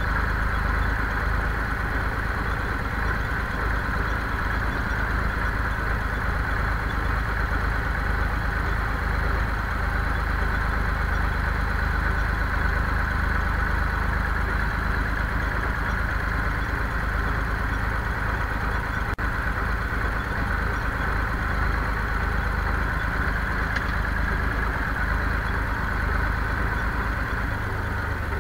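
Zetor 5245 tractor's four-cylinder diesel engine running steadily while under way, heard from the driver's seat.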